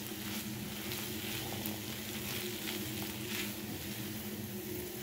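Githeri with beef and tomato gravy sizzling in a frying pan, with a spatula stirring and scraping through the beans and maize.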